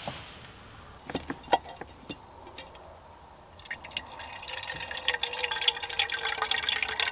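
A few light clicks and knocks, then from about four seconds in a thin stream of water running from the tap of a hanging collapsible water carrier into a small aluminium kettle, the filling sound growing louder as it goes.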